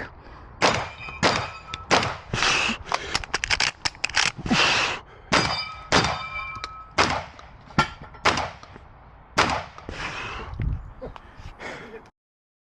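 Shotgun fired in quick succession at steel targets: a run of sharp shots and impacts, several followed by the ringing clang of struck steel plates. It cuts off suddenly near the end.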